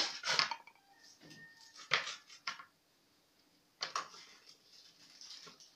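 A metal knife clinks and scrapes against a serving tray and rustles aluminium foil while a baked meat-and-potato roll is cut and lifted. There are several sharp clicks, a cluster at the start and single ones about two and four seconds in.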